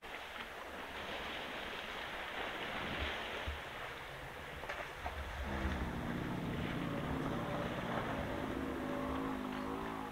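African bush elephant giving a low rumble, a deep steady pitched sound that starts about halfway through and lasts about four and a half seconds, over a steady background rush.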